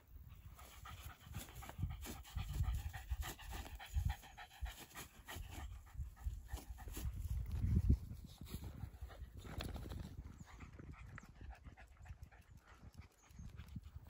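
Jack Russell terrier panting while it noses through long grass, with rustling and uneven low thumps.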